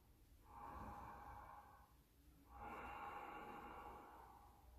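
A man's faint, slow, deep breathing while held in a yoga seated forward bend: two long breaths, each lasting about a second and a half, the first starting about half a second in and the second about two and a half seconds in.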